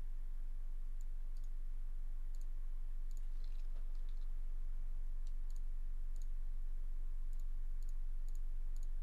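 Computer mouse clicking: single sharp clicks every second or so, with a quick cluster about three and a half seconds in, over a steady low electrical hum.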